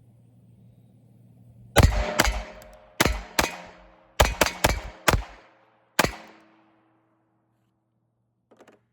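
Taurus TX22 .22 LR pistol fired nine times in quick, uneven succession over about four seconds, each shot a sharp crack with a short ringing tail, followed near the end by a few faint clicks.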